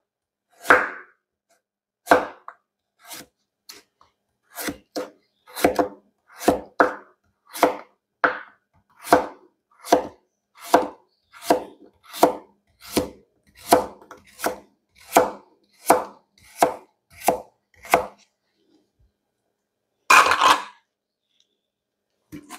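Kitchen knife chopping a carrot on a cutting board: about twenty single, evenly paced cuts, roughly one every 0.7 seconds, then one longer, louder sound near the end.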